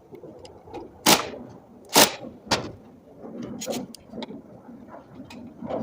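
Sharp knocks and clatter from hands-on work on an electric scooter's wheel during an inner-tube change: three loud knocks in the first three seconds, then lighter taps.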